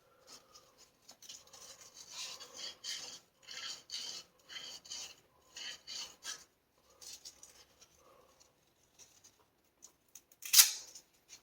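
Abrasive sanding strip (emery cloth) rubbing back and forth on a copper pipe end to clean it for soldering: a run of scratchy strokes, about two a second, that tail off. A single sharp clack comes near the end.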